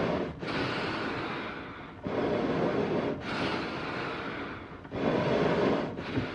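Eerie animal breathing: breaths in and out in turn, each starting suddenly and trailing away, about one full in-and-out every three seconds.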